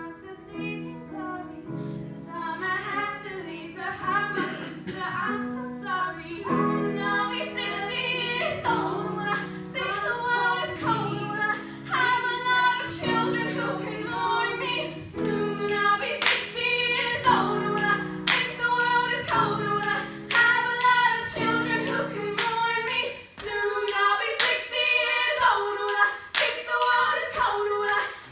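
A song sung live with a sustained low accompaniment, and sharp hits scattered through it; the low accompaniment drops away about five seconds before the end, leaving the voices and the hits.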